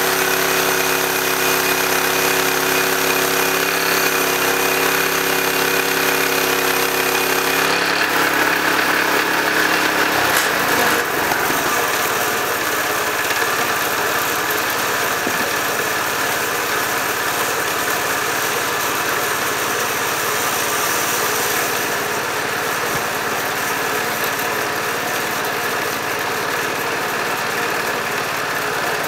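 Bandsaw mill running with its engine going steadily as it saws slabs off a log. About eight seconds in, the engine's steady tone drops away and the sound turns into a broader, even noise that holds for the rest of the time.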